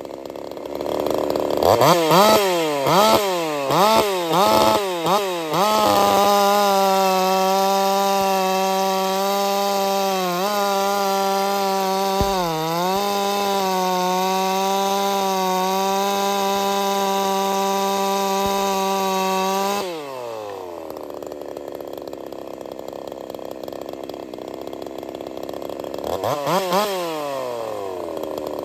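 Jonsered 2149 two-stroke chainsaw, a 50cc racing build, blipped to high revs about half a dozen times in quick succession, then held at high revs for about fourteen seconds with two brief dips. It drops back to idle and is blipped twice more near the end. At idle the clutch keeps spinning, which the owner puts down to an idle that won't tune low enough.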